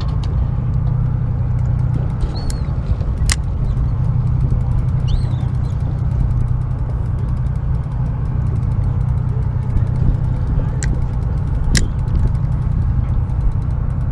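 Steady low rumble of a charter fishing boat's engine running, with a constant low hum underneath. Two sharp ticks cut through it, about three seconds in and again about twelve seconds in.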